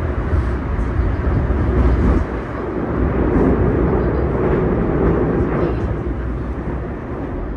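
Tokyu 2020 series electric train running at speed, heard from inside the passenger car: a steady rumble of wheels on rail mixed with traction motor and running noise. The deepest part of the rumble eases about two seconds in.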